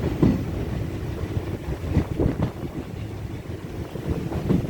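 Passenger train running along the track, heard from the carriage: a steady low rumble with irregular knocks, and wind buffeting the microphone.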